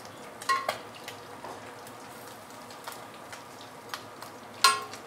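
Small sillago whiting deep-frying in hot oil: a steady sizzle full of fine popping crackles. A metal spatula knocks against the steel pan twice, about half a second in and near the end, each with a short metallic ring, as the fish are turned.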